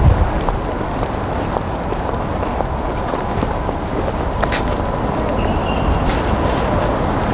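Wind buffeting the microphone over steady outdoor urban background noise, with a few faint ticks.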